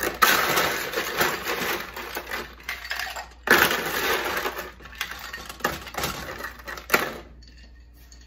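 Ice cubes clattering and crunching into a glass mixing glass as they are scooped in, in two long bouts, the second starting about three and a half seconds in.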